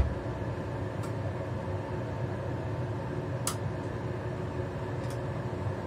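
A gas hob's igniter clicks sharply once about three and a half seconds in as the burner is lit, with a few fainter clicks, over a steady fan hum. A louder knock sounds right at the start.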